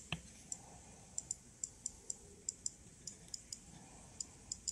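Geiger-counter radiation dosimeter clicking at irregular, random intervals, about three short high ticks a second, each tick a registered radiation count. A single button click near the start as the device is switched on.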